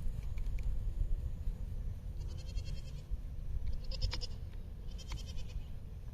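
Goats bleating three times, short high calls about a second apart, over steady wind rumble on the microphone.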